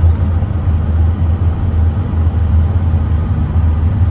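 Diesel horsebox engine and road noise, a steady low drone while driving at speed up a hill. It pulls at about 60 mph without dropping off, now that the new EGR valve is fitted.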